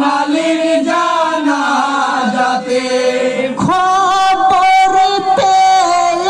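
Male voices chanting a Bengali marsiya, a sung lament for the martyrs of Karbala, as a group. A new long held note begins about three and a half seconds in, with a few low thumps under it.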